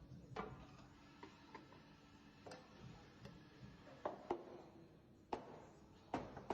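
Faint, irregular sharp clicks and knocks, about seven in all, some ringing briefly, over a quiet steady background.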